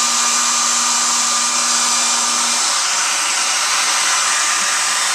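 Electric hair dryer blowing steadily, aimed into a refrigerator to melt ice blocking the freezer's defrost drain tube. A low hum under the airflow drops out about halfway through.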